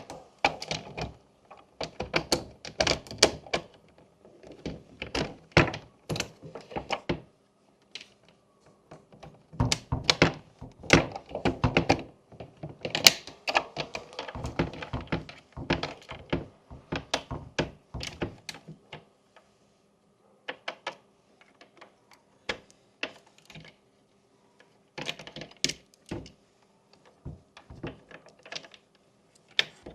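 Plastic fidget-board pieces being pressed, flicked and tapped: runs of quick sharp clicks and thunks with short pauses between them, growing sparser in the second half.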